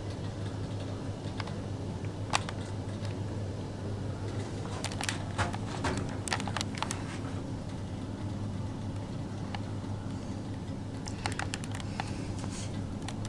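Old Otis lift car travelling between floors: a steady low hum, with scattered clusters of light clicks and ticks.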